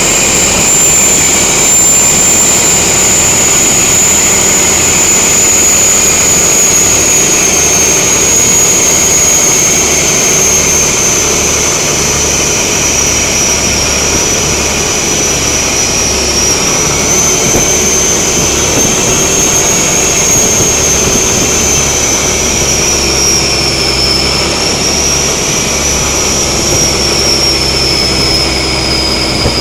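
Khlong Saen Saep canal passenger boat running at speed: loud, steady engine noise mixed with rushing water from the hull and spray, and a high whine that drifts slowly lower.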